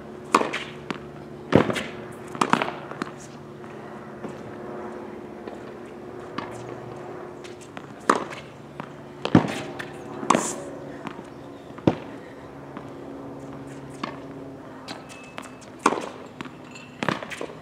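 Tennis ball struck by racket and bouncing on a hard court: a series of sharp pops at irregular intervals, some close together and some several seconds apart.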